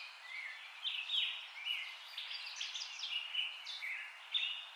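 Small birds chirping: many short, quick whistled notes, several a second and overlapping, over a steady faint outdoor hiss.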